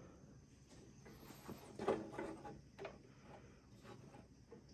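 Faint clicks and light scrapes of a metal square being set and shifted against a miter saw blade and table, the loudest tap about two seconds in.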